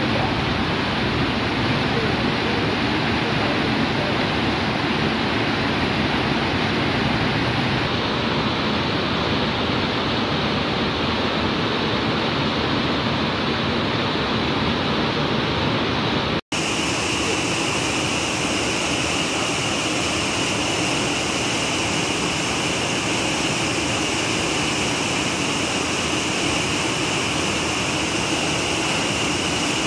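Steady rushing of white water as a river pours over a rocky waterfall. A little past halfway the sound cuts out for an instant and comes back slightly brighter in tone.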